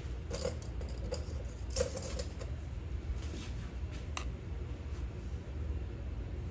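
A few faint clicks and scrapes of a metal spoon scooping out baking powder, over a low steady hum.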